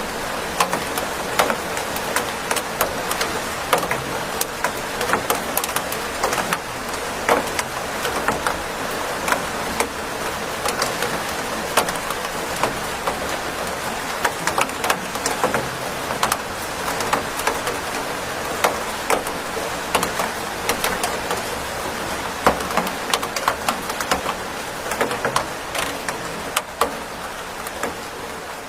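Steady rain: a dense hiss with many sharp drops tapping irregularly on a surface. It eases slightly near the end.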